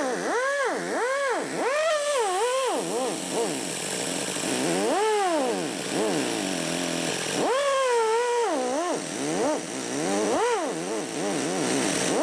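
Pneumatic die grinder with a tapered bit grinding out an aluminium intake manifold port. Its whine rises and falls in pitch again and again as the tool bogs under downward pressure and spins back up, holding steadier for a couple of short stretches.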